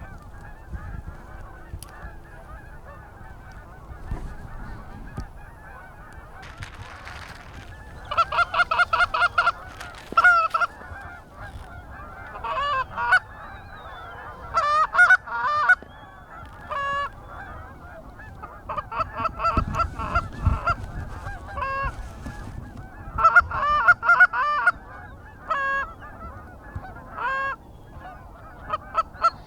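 Canada goose honks and clucks in quick strings, several bursts of calls with short pauses between them.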